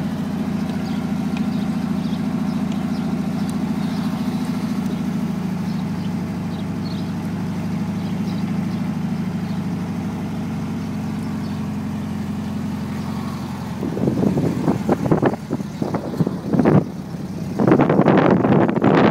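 The Gazelle replica kit car's engine runs steadily with an even low hum. In the last few seconds it is drowned by loud, uneven rushing noise.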